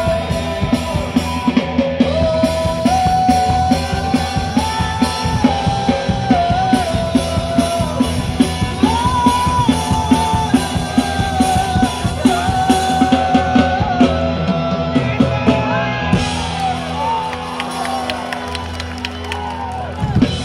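Live rock band playing through a concert PA, heard from within the crowd: a sung melody over electric guitars and a drum kit. The drumming thins out over the last few seconds.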